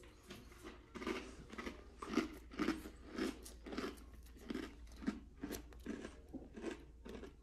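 A person chewing a crunchy fortune cookie: a steady run of crisp crunches, two or three a second.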